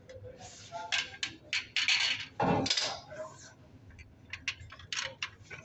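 Hard plastic parts of a copier drum unit being handled and fitted together: a run of clicks, knocks and scrapes, with a louder knock about two and a half seconds in.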